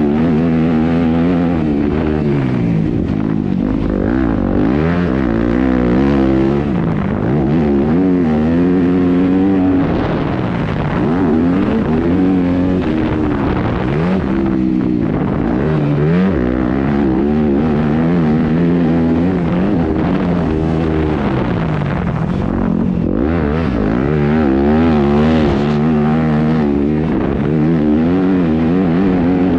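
2019 Yamaha YZ250F single-cylinder four-stroke motocross bike engine being ridden hard, revving up and dropping back over and over as the throttle is opened and closed every few seconds.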